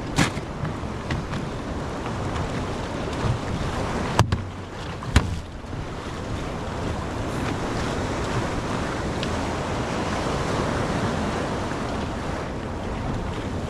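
Wind buffeting the microphone over a steady wash of waves, with a few sharp knocks, the clearest about four and five seconds in.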